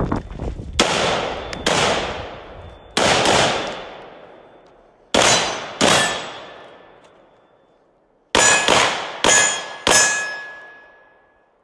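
About ten gunshots fired in uneven groups: two, then a quick pair, another pair, and a fast string of four near the end. Each shot echoes away over a second or more, and a thin metallic ring hangs after several of them.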